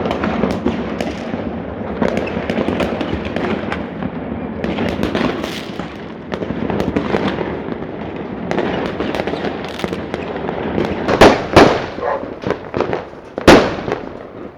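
Fireworks going off: a continuous crackle of many overlapping bangs and pops, with a few louder single bangs near the end.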